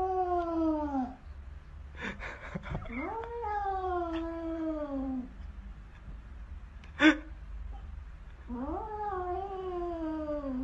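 A domestic cat yowling in three long, drawn-out threat calls, each rising then sagging in pitch, the defensive caterwaul of a cat squaring up to what it takes for a rival. A short noisy rasp comes between the first two calls, and a single sharp burst about seven seconds in is the loudest sound.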